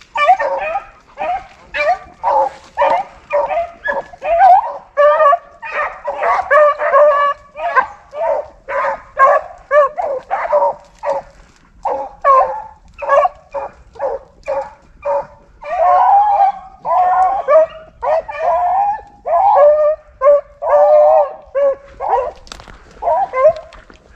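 A pack of rabbit hounds baying on a rabbit's scent, several dogs giving tongue at once in overlapping calls of different pitch, two or three a second, without a break.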